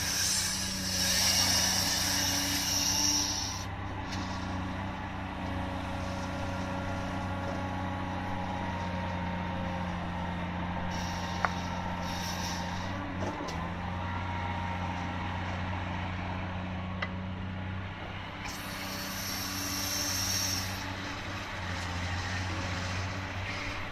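Cat 345D L excavator's diesel engine running steadily under load while digging and loading trucks, with two spells of loud hiss, at the start and again about three quarters of the way through, and a couple of sharp clicks in between.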